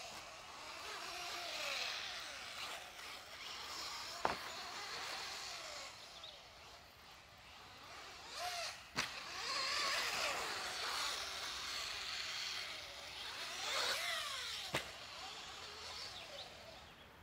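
Team Associated B5M 1/10-scale electric buggy lapping the track, its motor whining up and down in pitch as it accelerates and brakes. Three sharp knocks come about 4, 9 and 15 seconds in.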